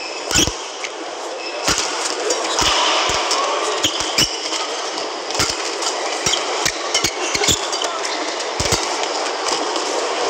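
Badminton rally: rackets strike the shuttlecock in sharp, repeated cracks, heard over a steady hubbub from the arena crowd.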